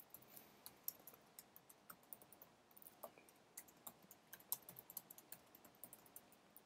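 Faint, irregular clicking of keystrokes on a computer keyboard as code is typed.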